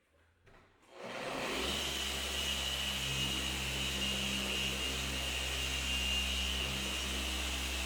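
Electric paint polishing machine starting about a second in and then running steadily, a motor whir with a high whine over a low hum.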